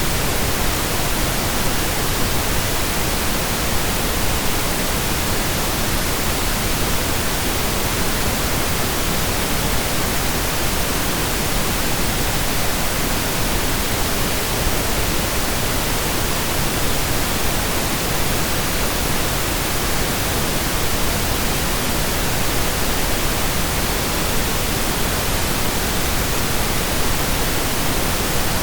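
Steady synthesized pink noise: an even, unchanging hiss with equal energy per octave.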